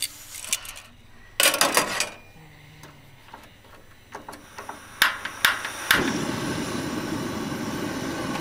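Metal clatter of a frying pan and tongs on a two-burner gas camp stove. A few sharp clicks follow as the stove is lit, and from about six seconds in the burner's gas flame gives a steady hiss.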